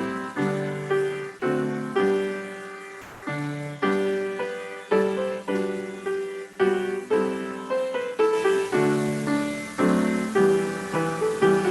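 Piano playing a hymn accompaniment in full chords, struck at an even, walking pace, each chord fading before the next.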